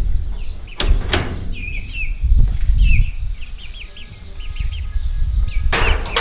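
Young black chickens peeping over and over in short, high, rising-falling chirps. A couple of sharp rustling clatters come about a second in, and again near the end.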